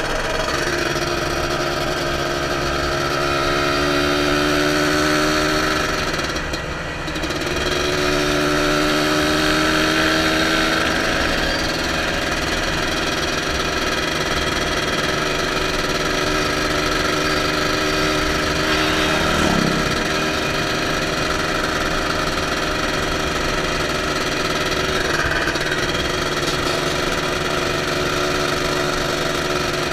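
ATV engine under way at road speed, the revs climbing twice in the first dozen seconds with a short dip in between as it shifts up, then holding a steady cruise. A rough rumble of wind on the microphone runs underneath.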